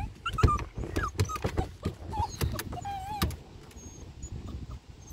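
Small dog whining in a string of short, high whimpers that rise and fall in pitch, bunched in the first three seconds or so, with a few sharp knocks over a low rumble.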